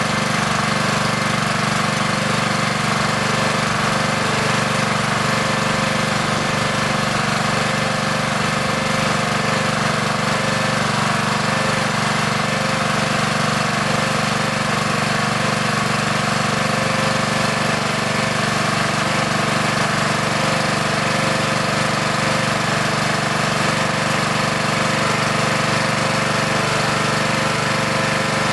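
Honda GX200 single-cylinder engine running steadily on a Simpson gas pressure washer.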